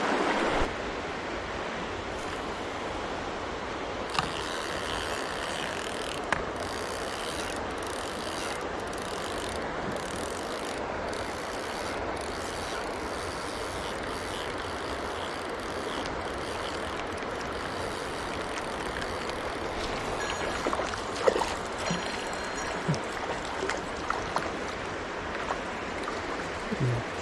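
Mountain stream running steadily, with a few scattered short clicks and knocks, more of them in the last several seconds.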